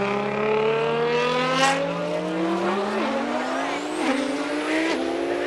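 A high-performance car engine accelerating hard, its note climbing steadily, then stepping down briefly every second or so as it shifts up through the gears. A faint high whine rises along with it.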